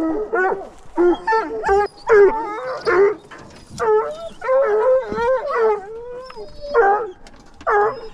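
Bear hounds baying in a rapid string of howls and yelps, more than one dog calling over one another.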